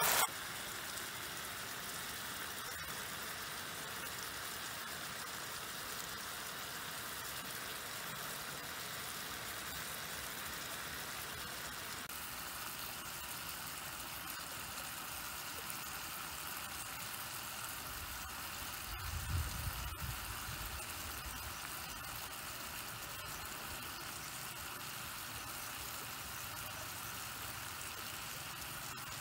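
Beef and green-banana stir-fry simmering in a frying pan on a portable gas stove: a steady, faint sizzling hiss. A brief low rumble comes about twenty seconds in.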